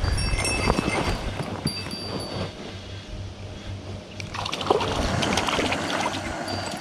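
Water sloshing and splashing as a hooked white-spotted char is fought at the surface, louder about a second in and again from about four seconds in.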